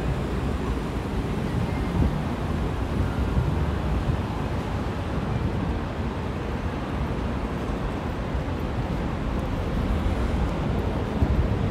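City street ambience: a steady low hum of traffic on a busy Manhattan street, with wind buffeting the microphone.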